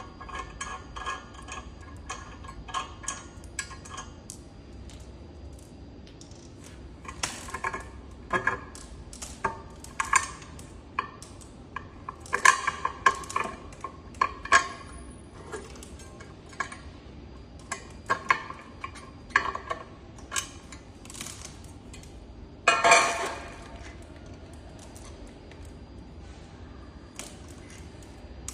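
Irregular metallic clinks, taps and clicks of tools and hardware being handled while the scooter's rear motor is worked on, with a louder clatter about three quarters of the way through.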